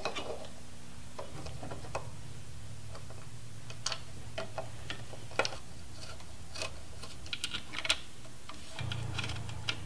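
Scattered light clicks and taps of hand-fitted parts against a metal armor panel as a taillight and its fittings are worked into place, over a steady low hum.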